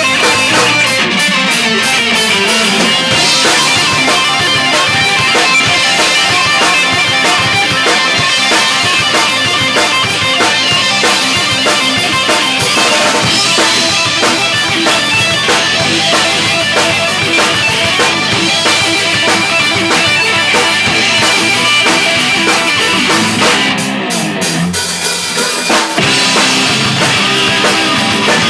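A rock band playing live: drum kit with bass drum, electric guitars and bass guitar, loud and continuous, briefly thinning out about three-quarters of the way through.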